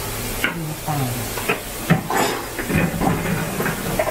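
Food frying in a wok over a gas burner: a steady sizzling hiss, broken by several short sharp clinks.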